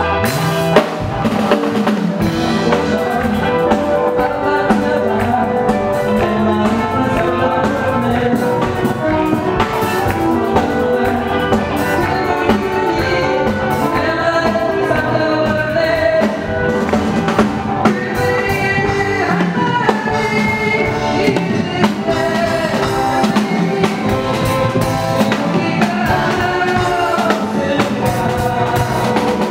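Live band playing an upbeat song, with drum kit, electric guitar, bass and keyboards, and a steady beat.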